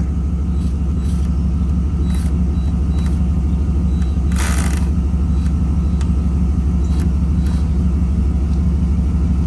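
Chevy Z71 pickup's engine running with a steady low rumble. A short hiss breaks in about four and a half seconds in.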